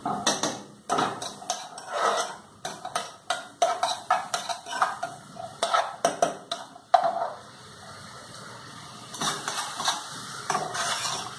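Metal spoon stirring in cooking pots, clinking and scraping against the pan sides and bottoms in quick irregular knocks, with a brief lull about two-thirds of the way in.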